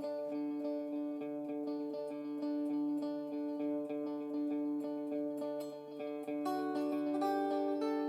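Background music: a fast, steadily picked acoustic string tune, with a change of notes about six and a half seconds in.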